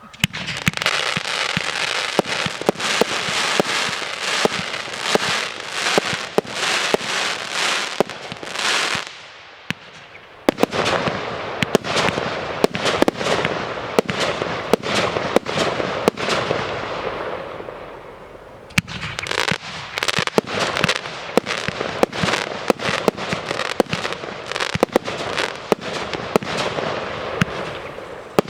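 Fireworks display going off: rapid sharp bangs over dense crackling, in three long volleys, each fading out before the next starts, about ten and nineteen seconds in.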